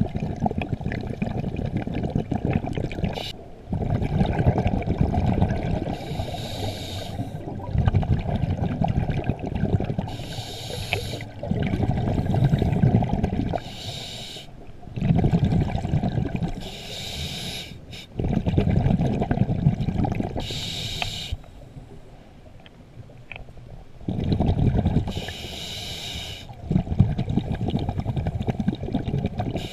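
A scuba diver breathing through a regulator underwater. About six slow breaths, each a bubbly rumble of exhaled air and a shorter hiss from the regulator.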